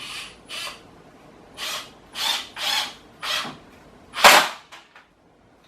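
Power drill driving a screw into wood in about seven short bursts, the last one the loudest.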